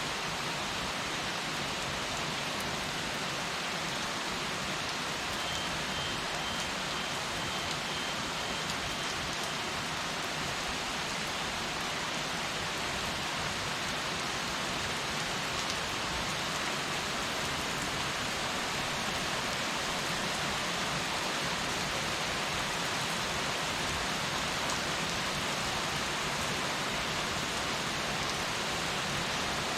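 Heavy rain falling steadily and evenly, growing slightly heavier toward the end.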